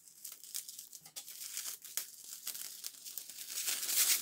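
Thin plastic film being peeled off cured epoxy on a fiberglass boat hull repair, crinkling and crackling in a run of small snaps, loudest near the end.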